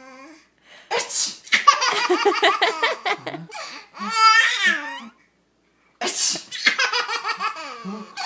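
A man sneezing loudly twice, about a second in and again about six seconds in. Each sneeze sets off a small child's laughing and squealing.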